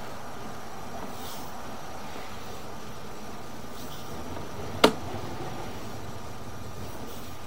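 Steady machine-like hum and hiss, with one sharp click just before five seconds in.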